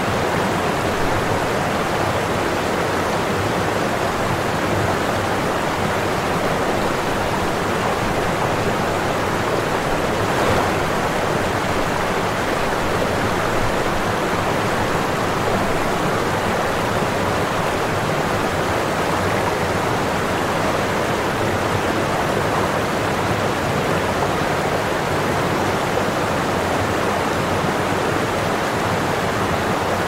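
Waterfall pouring into a pool: a steady, even rush of falling water that does not change.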